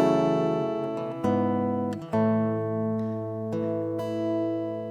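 Soft instrumental worship music on acoustic guitar: slow, ringing chords, a new one struck every second or so.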